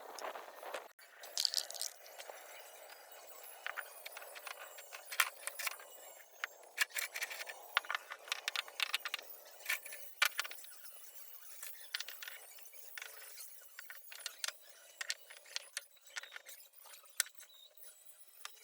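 Irregular sharp clicks and clinks of hard objects knocking together, over a faint steady hiss.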